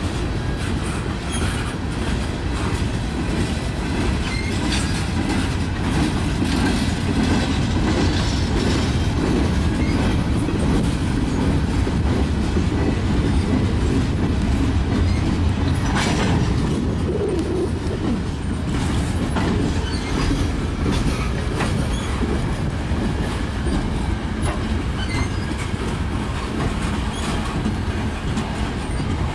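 Freight train's open-top coal gondolas rolling past at close range: a steady rumble of steel wheels on rail with clicking over the rail joints, and a sharper clank about halfway through.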